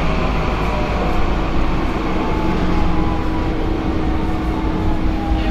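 Tram running on rails, heard from inside the car: a steady rumble, faint electric whines sliding down in pitch, and a steady hum that joins about a second in.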